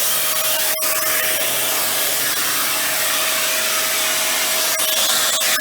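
Dyson Ball Animal 2 upright vacuum's suction motor running steadily at full suction, air rushing through the hose and extension wand with a steady whine.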